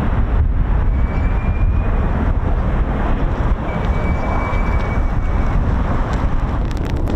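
Wind buffeting the microphone: a steady, heavy low rumble with a faint thin whistle twice and a few light ticks near the end.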